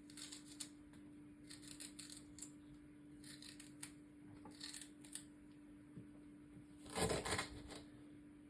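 Faint scraping and light clicking of the skin being peeled off a small piece of ginger root, with a louder handling noise about seven seconds in.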